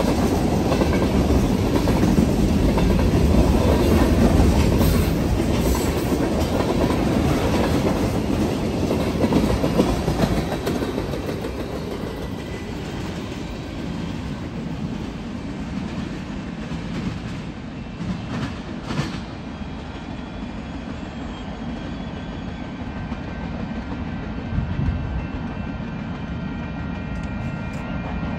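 Union Pacific freight cars rolling past at a grade crossing, with wheels clicking over the rail joints. The sound is loud at first, then fades after about ten seconds as the end of the train moves away, leaving a lower rumble.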